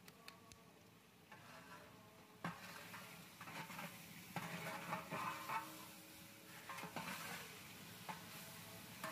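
A long metal ladle stirring chicken korma in a large metal deg, the gravy sizzling and sloshing, with scrapes and knocks of the ladle against the pot. It is faint at first and picks up about two and a half seconds in.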